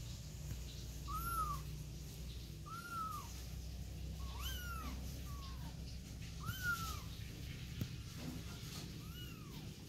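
Kittens mewing: short, high-pitched calls that rise and fall, about six of them, one every second or so.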